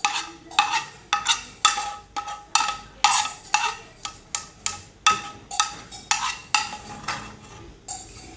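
Spoon scraping and knocking against a metal pan, about two strokes a second, each with a short metallic ring, as the cooked slime mixture is scraped out; the strokes thin out and fade near the end.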